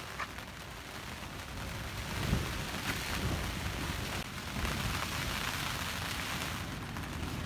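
Heavy rain and gusting wind beating on a polycotton canvas tent, heard from inside; the storm swells louder about two seconds in, with low rumbling gusts.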